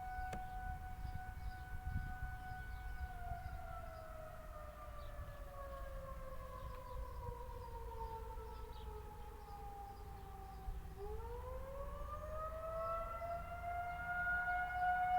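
Federal Signal 2001-130 electromechanical warning siren sounding a steady tone that, about three seconds in, slowly winds down in pitch for some eight seconds, then winds back up to full pitch near the end: the rise and fall of the attack wail.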